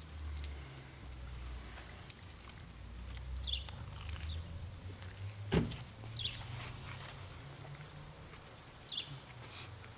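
Low steady rumble of a motor vehicle on the road, with three short high chirps spaced a few seconds apart and one sharp click about halfway through.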